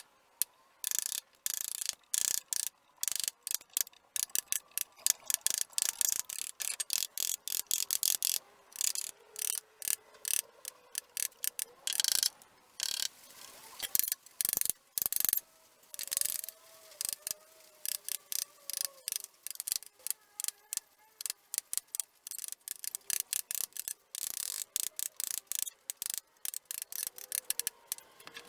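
Wood being cut or scraped by hand with a carving tool in rapid, irregular short strokes, each a brief rasping scrape.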